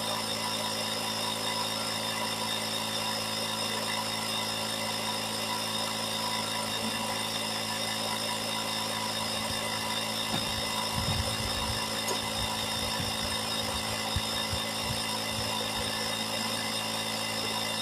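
Steady hum of a running machine, many even tones held level throughout, with a few low bumps and rumbles between about ten and fifteen seconds in.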